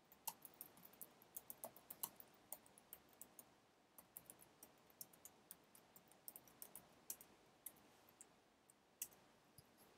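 Faint computer keyboard typing: quick, irregular key clicks with short pauses between runs, thinning out near the end.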